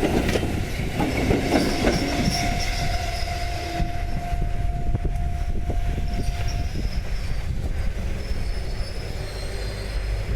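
Kotoden 1070-series four-car electric train running past at low speed, its wheels clacking over rail joints at first. A steady squeal from the wheels lasts until about two-thirds of the way through.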